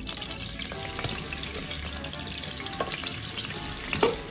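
Ginger-garlic paste sizzling and crackling as it is spooned into hot oil in a nonstick pan, with one sharp knock about four seconds in.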